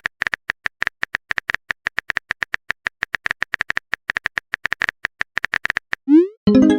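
Rapid clicks of a phone keyboard typing sound effect, about seven a second, then near the end a quick rising swoosh and a loud pitched chime, the sound of a text message being sent.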